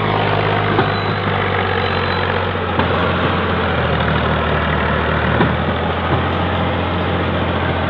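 Fiat 480 tractor's diesel engine running steadily under heavy load as it hauls a fully loaded sugarcane trolley out of the field. Its low note shifts slightly about two and a half seconds in.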